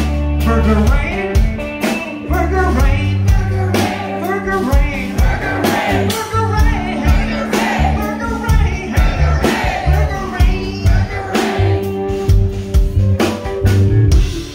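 Live rock band playing loud: drum kit, electric bass and guitar, with a voice singing over them.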